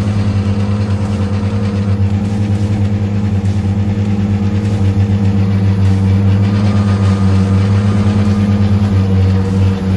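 Two outboard motors running together in forward gear at speed: a loud, steady drone.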